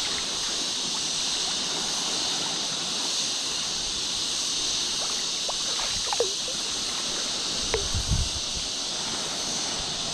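Steady rush of water in the shallows, with a few small splashes about six and eight seconds in from a hooked fish thrashing at the surface.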